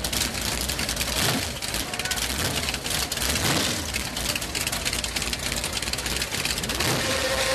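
Boss Hoss motorcycle's 632 cubic-inch V8 engine idling steadily, with a lumpy, knocking rumble.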